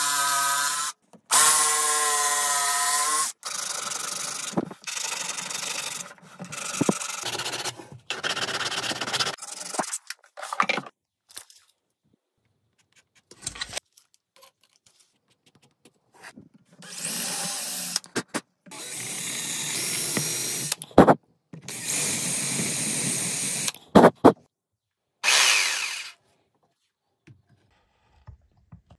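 A run of short, abruptly cut clips of electric power tools running, opening with a cordless jigsaw's motor whining at a steady pitch, with a quiet stretch of small handling noises about halfway through.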